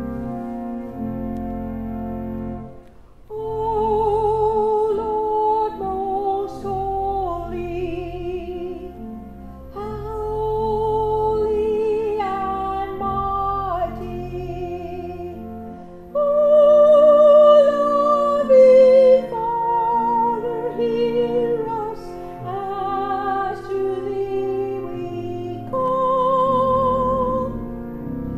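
A woman singing a slow solo with wide vibrato over sustained pipe organ chords. The organ plays alone at first; the voice comes in about three seconds in, and the loudest, highest phrase is just past the middle.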